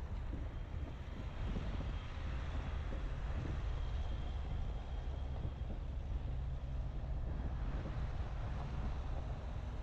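Dacia Duster driving: a steady low engine and road rumble with wind noise on the microphone.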